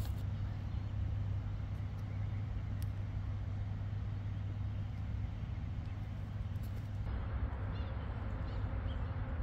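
Steady low outdoor rumble with no single clear source. It gets a little brighter about seven seconds in.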